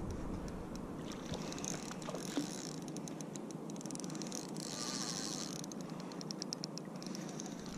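Spinning reel working while a mackerel is fought on the line: a high-pitched whir of rapid fine ticks that comes in bursts and stops and starts over the seconds.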